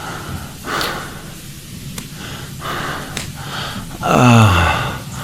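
A man breathing hard in short, audible breaths, then a loud groan about four seconds in that falls in pitch.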